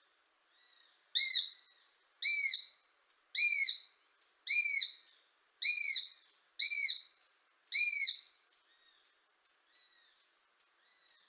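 Eurasian sparrowhawk calling: a series of seven loud, arching calls about a second apart, with fainter calls of the same kind before and after them.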